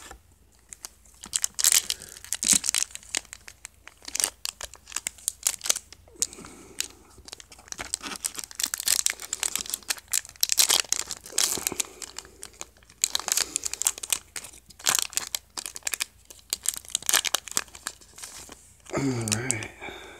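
Card-game booster pack wrappers crinkling and being torn open by hand, a dense irregular crackle that comes and goes throughout.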